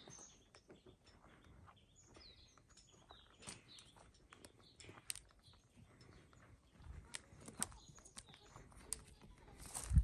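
Small birds chirping in short, repeated calls, with scattered clicks of goats' hooves on loose stones and a low thump near the end.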